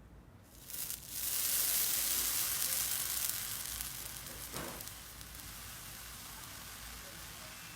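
Slime being worked by hand, giving a fine fizzing crackle that swells about a second in and eases to a softer steady hiss.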